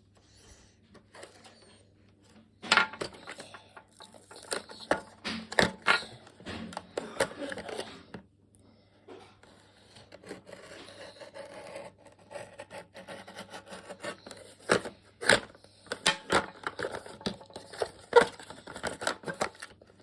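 Toy packaging being worked open with a hand tool: irregular scrapes and sharp clicks, in two bouts with a short lull between.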